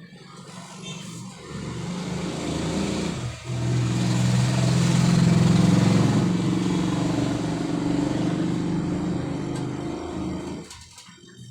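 A motor vehicle's engine passing by, swelling up over a few seconds, staying loud through the middle with a brief dip, then fading away near the end.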